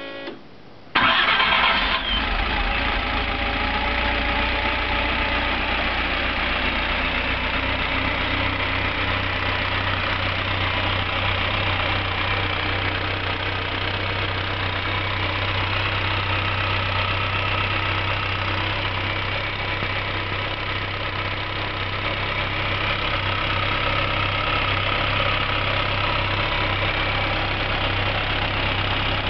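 A Skoda 120L's freshly rebuilt four-cylinder engine on its first start after the rebuild: it catches suddenly about a second in and then runs steadily.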